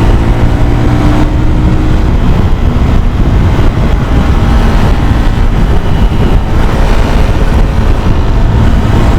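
Motorcycle riding on the road: wind buffeting the action-camera microphone over the steady running of the bike's engine.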